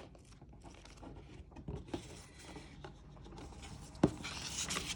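Paper manuals and packaging being handled: soft rustling of pages and booklets with small clicks, then a light knock about four seconds in followed by a second of louder rustling.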